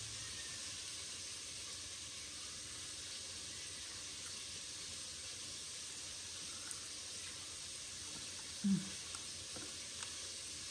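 Steady sizzle of chicken frying in hot oil, with a few faint clicks. About three-quarters of the way through comes a brief closed-mouth "mm" from someone chewing.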